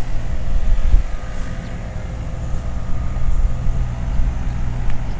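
Vehicle on the road: steady low engine and road rumble, with a few brief thumps about a second in.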